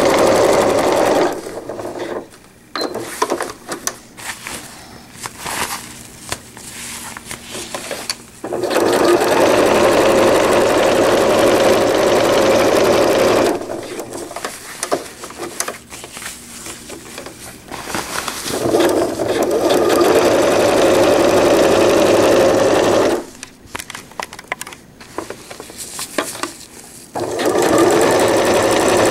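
Electric sewing machine stitching through PUL fabric in four runs of a few seconds each, stopping in between while the fabric is repositioned, with fabric rustling and light clicks in the pauses.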